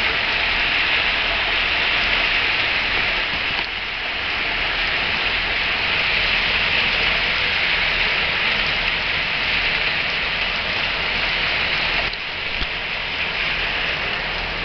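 Torrential rain pouring onto a city street: a dense, steady hiss that drops slightly about four seconds in and again near the end.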